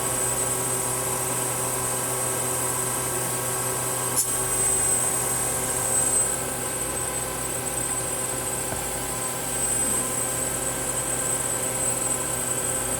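Sub spindle of a Tsugami S206 CNC Swiss-type lathe running steadily at 7500 rpm: an even, high-pitched whine over the machine's hum. A single click comes about four seconds in.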